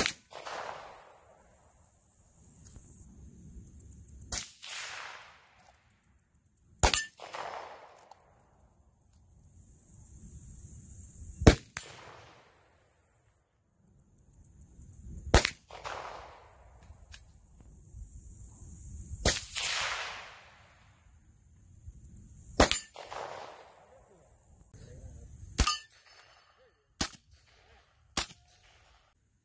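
A series of about ten single gunshots at irregular intervals, most followed by a short fading ring. The last three come quicker, closer together and without the ring.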